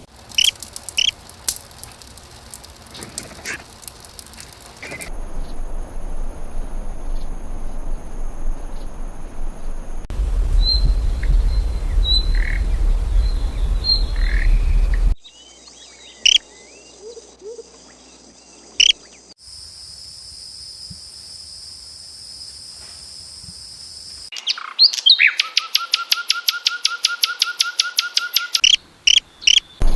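A string of short outdoor recordings of wild birds chirping and calling, joined with abrupt cuts every few seconds. Some segments carry a steady high hum and one a low rumble under the calls, and near the end a bird repeats a quick, even series of notes for several seconds.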